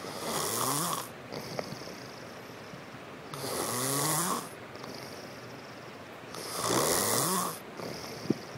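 Steady rhythmic snoring: three long snores about three seconds apart, each rising in pitch as it goes. A short sharp click comes near the end.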